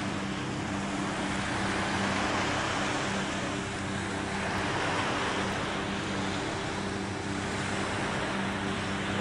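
Ocean surf washing on the beach, a steady hiss that swells and eases every few seconds, with a steady low hum underneath.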